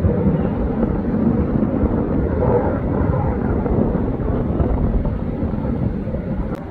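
Fighter jet flying overhead: a loud, steady jet rumble that slowly fades as it moves away, with a short click near the end.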